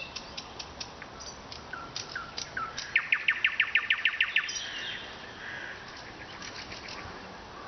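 Nightingale singing: separate sharp notes and short slurred whistles, then about three seconds in a loud, fast run of about ten repeated notes, followed by softer phrases.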